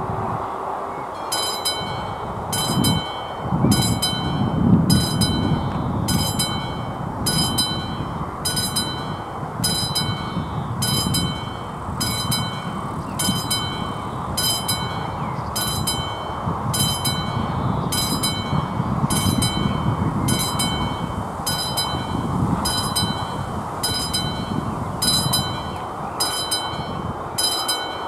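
Electric level-crossing bell on an AŽD 71 crossing signal starts about a second in and rings in short, rapid bursts, a little more than one a second: the crossing's warning that a train is approaching. A steady low rumble runs underneath.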